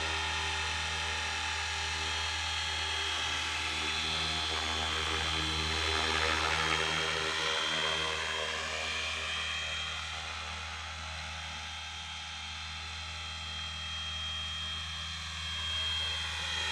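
FW 450 RC helicopter flying overhead: a steady rotor and motor whine whose pitch glides up and down as it manoeuvres, swelling louder and then fading somewhat before rising again near the end.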